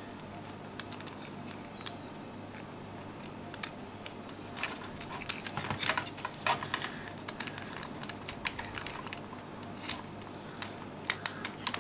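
Scattered small plastic clicks and taps as a Logitech G600 mouse's shell and parts are handled and pressed back together, busiest in the middle with a few sharper clicks near the end.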